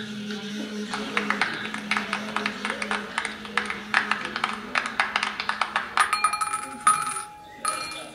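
Rapid, irregular run of small sharp clicks and clinks from a recorded sound collage played back through small loudspeakers, over a steady low hum that fades about three seconds in; a few short ringing tones sound near the end.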